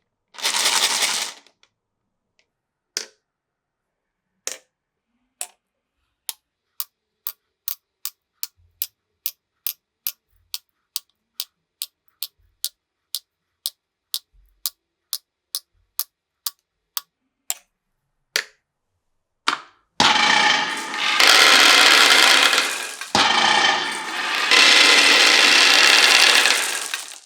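Marbles on a wooden marble run. First a short rush, then single clacks, then an even run of sharp clacks about two a second. About 20 seconds in, a loud continuous rolling rush starts, breaks briefly, and runs on.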